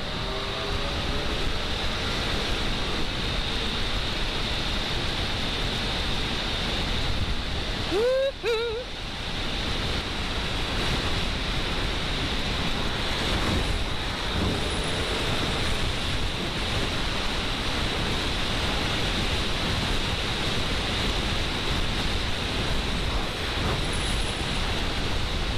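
Steady rush of wind on the microphone of a motorcycle at motorway speed, mixed with tyre hiss on the wet road, and a faint steady high whine above it. A brief pitched sound cuts in about a third of the way through.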